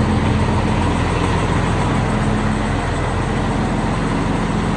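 FNM truck's Scania 112 diesel engine running steadily, exhausting through an open exhaust diffuser: a loud, deep, even rumble.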